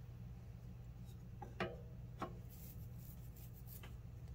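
Wooden slotted spatula stirring a thin sauce in a metal saucepan, with two light knocks of the spatula against the pot about a second and a half and two seconds in, over a steady low hum.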